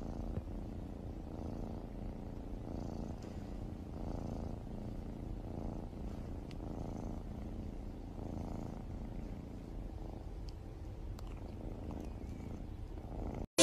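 Cat purring steadily, the purr swelling and easing in an even rhythm about every second and a half.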